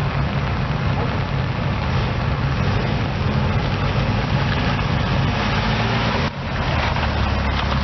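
Toyota Celica TA61 1600GT's 2T-G twin-cam inline-four engine idling steadily, with a brief drop in level about six seconds in.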